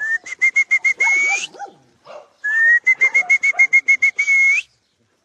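A person whistling to call goats in. There are two runs of quick, repeated short whistles on one high note, each finishing in a longer note that rises in pitch.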